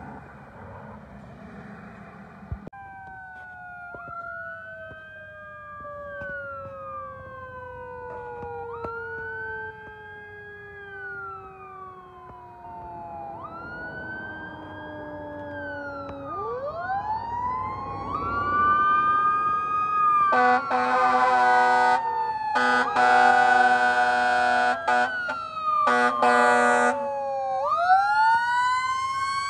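Approaching fire engine running its sirens: an electronic wail cycling over a long, slowly falling mechanical Q2B siren, then the Q2B winding up to a steady high pitch. Several long air-horn blasts come in the second half, and the Q2B winds up again near the end, all growing louder as the truck nears.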